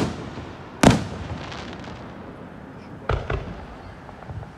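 Aerial firework shells bursting: a sharp bang right at the start, a louder bang about a second in with a trailing crackle, and a quick double bang around three seconds in.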